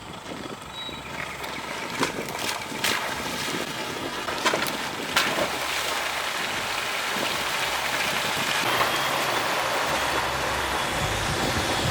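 4WD driving through a shallow creek, water splashing against the underbody and wheel arches and growing steadily louder, with a few sharp knocks in the first half.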